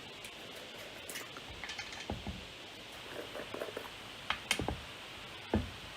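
Paint pots and craft tools handled on a tabletop: scattered light clicks and taps, with sharper knocks about four and a half seconds in and again shortly before the end.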